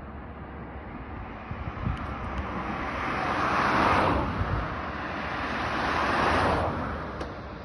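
A sliding window or door panel rolling along its track, pushed one way and then back, making two smooth rising-and-falling rolls with no clicking from the rollers. This is the sound of a freshly serviced panel running freely.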